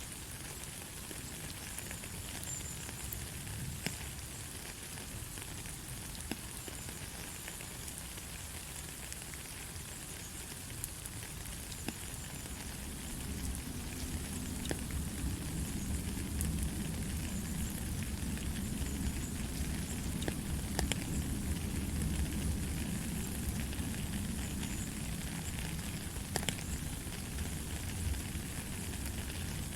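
Steady light rain: a fine even hiss with scattered ticks of single drops. About halfway through a low rumble comes in beneath it and the whole grows a little louder.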